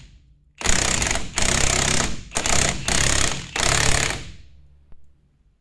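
Impact wrench working a bolt on the sweeper's brush housing, run in five short bursts with brief pauses between them, then spinning down near the end.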